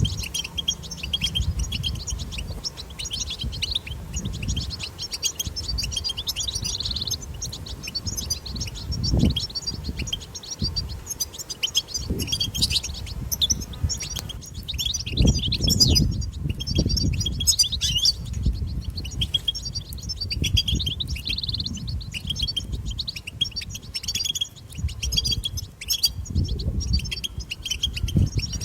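European goldfinch twittering song: a long, unbroken stream of rapid high chirps and trills. Low rumbles come and go underneath, the strongest a little past the middle.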